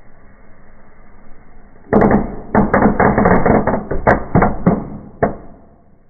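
Small fireworks going off in a fireplace: a steady hiss, then, about two seconds in, a sudden rapid string of loud bangs and crackles lasting about three seconds, ending with one last separate bang.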